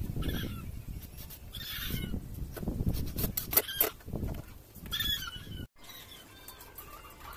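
Chickens clucking in short calls, four or five times, over knocks and handling noise from a clamp being worked on a wooden rack.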